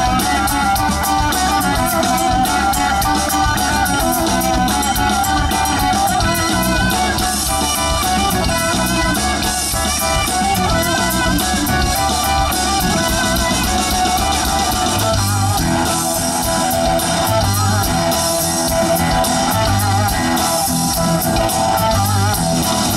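Live rock band playing through a PA: an electric guitar from a Flying V plays a wavering lead line over bass guitar and a drum kit with steady cymbals.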